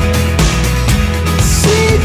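Background music: a song with bass and a steady drum beat, about two hits a second.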